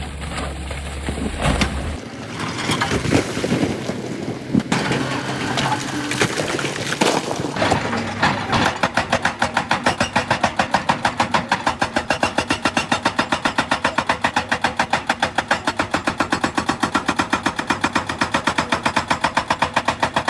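Heavy machinery: irregular clattering and scraping for about eight seconds, then a fast, even mechanical pounding of about six strokes a second.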